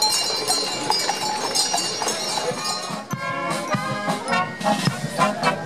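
Draught horses' hooves clip-clopping on the road with a jingling of bells, cut off about three seconds in by brass music with trumpets and trombones.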